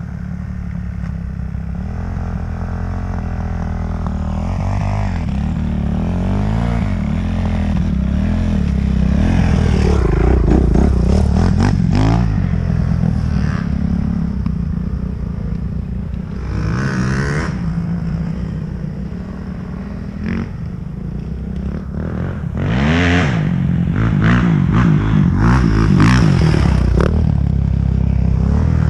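Dirt bike engine ridden on a dirt trail, heard up close from the rider's helmet, revving up and down over and over as the throttle is worked, with sharp clatters mixed in.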